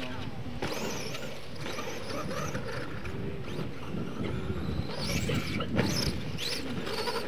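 Scale RC monster truck's electric motor whining as it revs up and down in quick rising and falling glides, with the tyres scrabbling in loose dirt.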